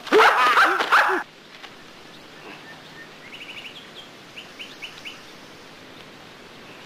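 A fighter's high, wailing yells, three quick rising-and-falling cries that cut off about a second in. Then quiet outdoor ambience with a bird chirping in short, quick trills.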